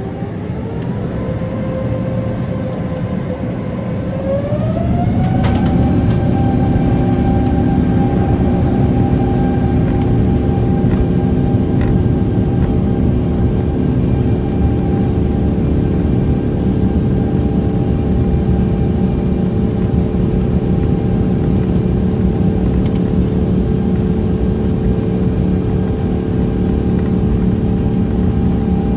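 Airbus A350's Rolls-Royce Trent XWB turbofans heard from inside the cabin, spooling up to takeoff thrust in two steps. The whine rises in pitch at first and again about five seconds in, then holds steady over a loud rumble.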